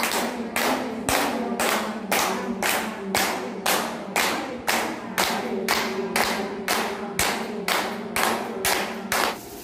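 A group of people clapping their hands in unison as a yoga clapping exercise, a steady even beat of about two claps a second.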